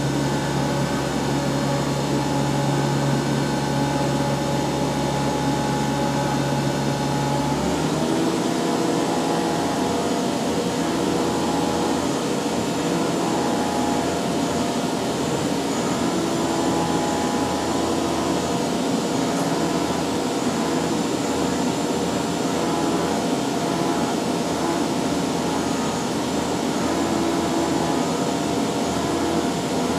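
CNC vertical machining center milling a skeletonizing pocket in a metal knife handle: a steady machine whine with the sound of the end mill cutting. About eight seconds in the low hum drops away and the pitch shifts, and after that a tone swells and fades every couple of seconds.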